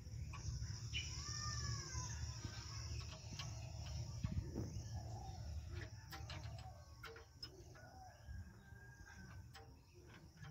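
Birds calling in the background, a few short curved calls early on and more here and there later, with scattered light clicks and taps from hand work on an engine, over a steady low rumble.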